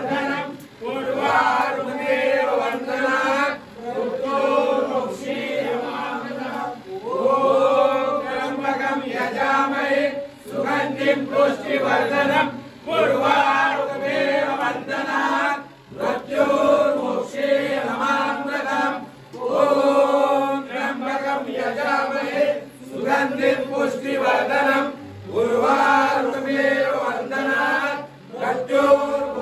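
A group of men chanting a devotional chant in unison, in sung phrases of a couple of seconds with short breaks between them.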